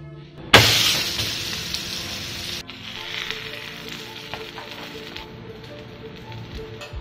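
Sudden loud sizzle about half a second in as a ragi (finger-millet) uttapam lands on a hot iron tawa, fading over a couple of seconds, then quieter sizzling as it cooks. Electronic background music plays throughout.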